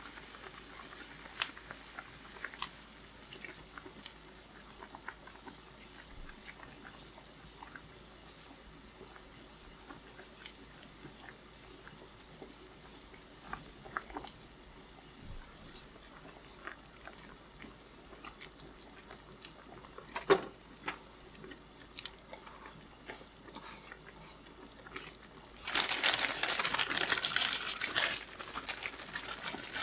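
Scattered light clicks and knocks, then water runs from a kitchen tap into a sink for about three seconds near the end.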